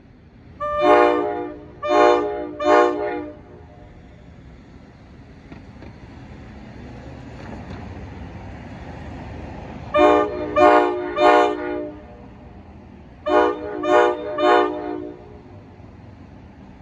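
Approaching commuter train's horn sounding three groups of three short blasts, the second group about ten seconds in and the third soon after. A low rumble of the train builds in between.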